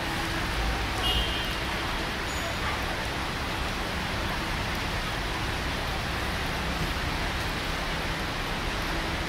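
Steady wash of traffic noise from buses, cars and motorbikes wading through a flooded street, with a low rumble swelling about a second in.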